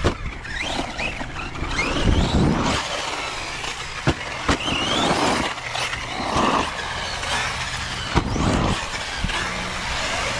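A Traxxas Sledge RC monster truck's brushless motor whines as it revs up and down under hard driving. A few sharp knocks stand out, about four seconds in and again near eight seconds.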